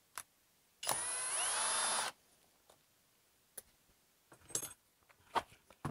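Cordless Kobalt brushless hammer drill run briefly, about a second in: the motor's whine rises as it spins up, holds for about a second, then stops. A few faint clicks and knocks follow.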